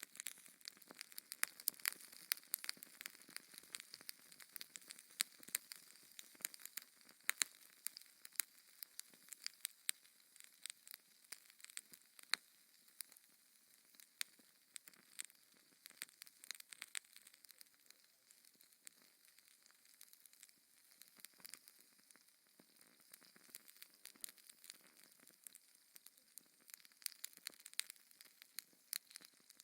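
Fire crackling in a fireplace: a steady stream of sharp pops and snaps over a soft hiss, busier in the first half and again near the end.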